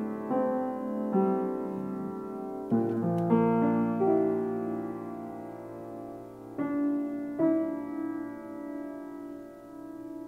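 Soft instrumental title music: slow chords struck every second or so and left to ring and die away, with a longer gap in the middle.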